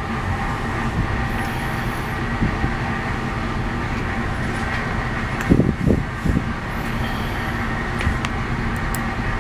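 A steady mechanical hum drones throughout. A short wavering sound comes a little past the middle, and a few faint small clicks near the end, as of tiny lock parts being handled.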